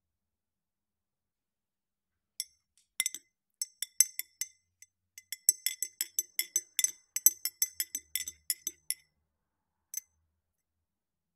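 Metal spoon stirring a drink in a ribbed glass tumbler, clinking against the glass: a few scattered clinks starting about two seconds in, then a quick run of clinks, and one last tap near the end.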